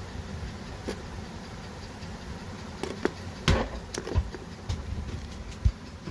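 Light clicks and knocks of a small digital camera being handled and opened up, scattered over a steady background hiss, with the loudest knocks about three and a half seconds in and near the end.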